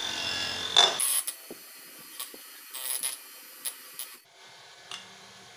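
Light metallic clicks and small clanks as parts are handled and a buffing disc is fitted on a bench buffer's spindle. The clicks come one at a time, roughly every half second to second, over a steady hiss.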